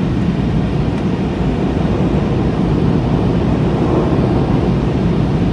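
Steady cabin noise of a McDonnell Douglas MD-83 climbing after takeoff, heard inside the passenger cabin. It is a low, even drone from the rear-mounted Pratt & Whitney JT8D turbofans mixed with rushing airflow over the fuselage.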